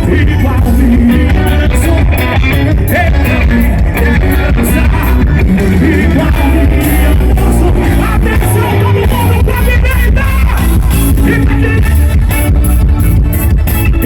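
Live forró music from a gospel band, loud and with a steady beat, with a sung vocal line over it.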